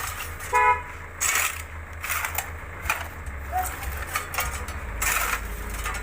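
A vehicle horn gives one short toot about half a second in, over a steady low engine rumble.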